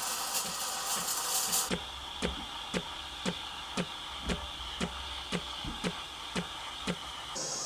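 Breville Barista Express steam wand steaming oat milk, with a hiss under the machine's pump ticking about twice a second. The hiss is loud and airy at first, drops about two seconds in to a quieter hiss with a steady high tone, and rises again near the end.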